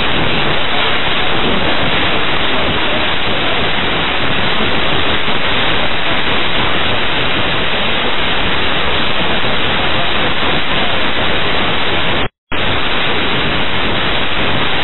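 Loud steady hiss of radio static on an air traffic control frequency recording, cutting out for a split second about twelve seconds in.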